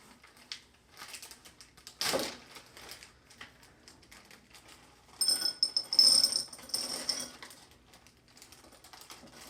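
White chocolate chips and butterscotch chips being poured from a plastic baggie into a bowl: a scatter of small clicks and rattles, with a louder burst about two seconds in and a dense clatter from about five to seven seconds.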